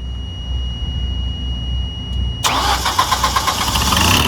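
A 20 kW standby generator's engine starting on its test run: a low rumble while it turns over, then it fires about two and a half seconds in and runs up loud and uneven. The generator's speed-sensing magnetic pickup has just been replaced.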